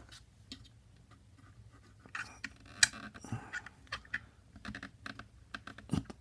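Irregular small clicks, taps and scrapes of parts being handled on a KWA M11 airsoft gun's plastic lower receiver while the trigger-assembly pin is worked out against its tension spring; the sharpest click comes a little under three seconds in.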